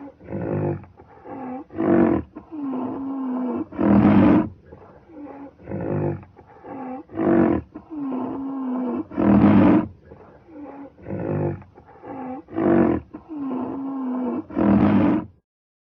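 Rhinoceros calls: a few short calls, then a longer call held at one pitch, then a loud call. The same sequence repeats three times as a loop and cuts off just before the end.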